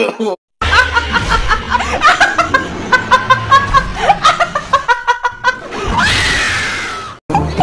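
Snickering and giggling laughter in quick, choppy bursts, then a long scream from about six seconds in that cuts off abruptly.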